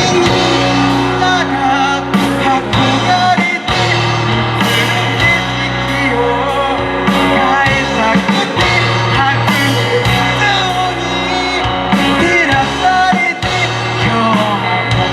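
Live rock band playing a song, with guitar over a steady beat and a voice singing.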